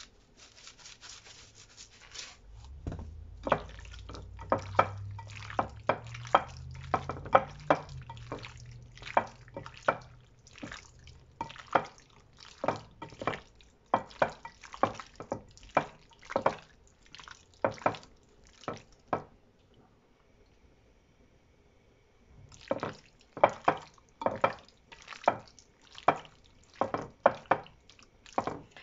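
Salt shaker rattling briefly at the start, then hands squishing and kneading raw chicken thigh pieces to work in salt and pepper: a long series of short wet smacks, about one or two a second, with a pause of a few seconds about two-thirds of the way through.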